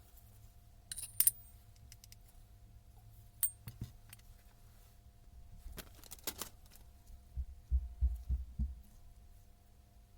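Small metal parts clinking and clicking as they are handled and set down on a workbench, a few sharp clinks followed by a cluster of dull knocks about three-quarters of the way through, over a faint steady hum.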